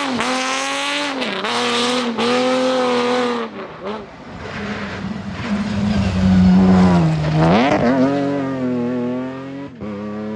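Rally car engine under hard use, its revs rising and dropping with quick gear changes. After that comes a noisier, lower stretch, then the revs climb sharply about three quarters of the way through and keep pulling upward.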